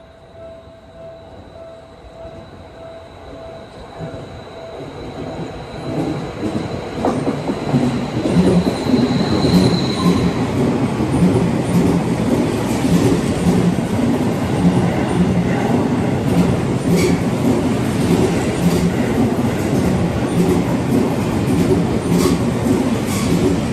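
Seibu 30000 series electric commuter train passing through a station without stopping. A high whine grows louder over the first ten seconds as it approaches, then the train runs past with a loud rumble and the repeated clack of wheels over rail joints. Faint beeping at the start.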